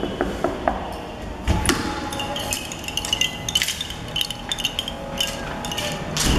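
A door knob latch clicking as the door opens, then footsteps on a tile floor with scattered knocks and small metallic clinks.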